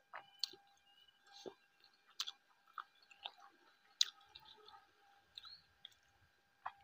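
Close-miked chewing of a mouthful of rice and fish, with scattered small clicks and wet mouth sounds of eating by hand.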